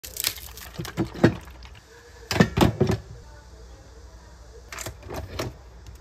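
Food packaging being handled: soy milk cartons and paper packets knocking and rustling in three short clusters of clicks and rustles.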